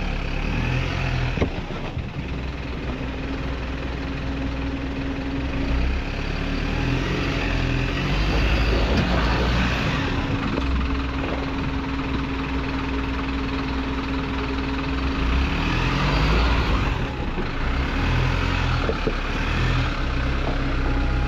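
Isuzu NPS truck's four-cylinder turbo-diesel engine running at low revs as the truck crawls over rocks, with a few knocks from the tyres and running gear on stone.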